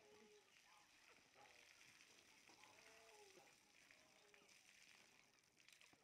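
Very faint steady hiss of water spraying from a garden hose onto an ostrich's wet feathers, with faint voices in the background.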